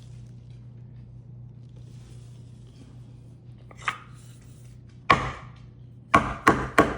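Wooden mallet knocking on a hard surface: a light tap, then a solid knock and three more knocks in quick succession.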